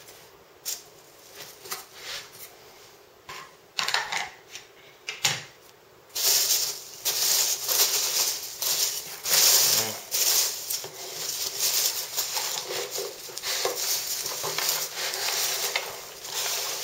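Hands rummaging through polystyrene packing peanuts in a cardboard box: a few scattered rustles and clicks, then a dense, loud crackly rustling from about six seconds in.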